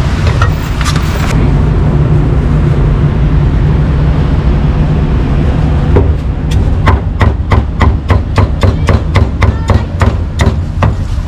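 Cleaver chopping pork on a chopping board: a rapid run of sharp strikes, about three or four a second, starting about six seconds in. Under it, a steady low rumble of street traffic.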